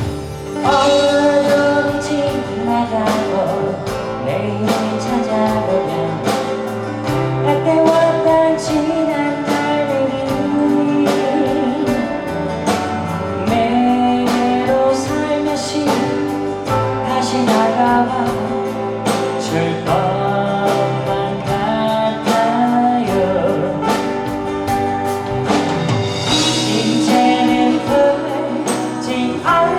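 Live band playing a slow ballad, with a sustained, bending lead melody over bass, drums and a steady beat.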